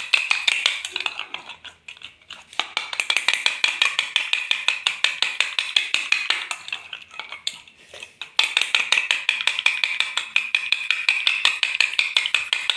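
A metal spoon beating eggs in a bowl, clinking rapidly against the bowl's sides, with two short pauses.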